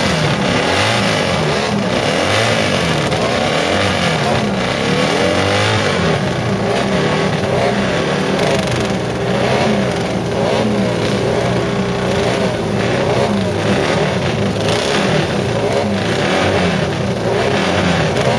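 Several vintage racing motorcycle engines running at once, their throttles blipped over and over so that many engine notes rise and fall across one another.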